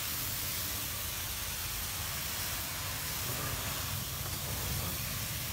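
A steady, even hiss with a faint low hum beneath it.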